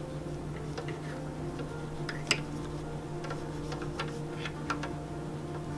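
Bamboo knitting needles clicking and tapping against each other as stitches are knitted: light, irregular clicks, with one sharper click about two seconds in, over a low steady hum.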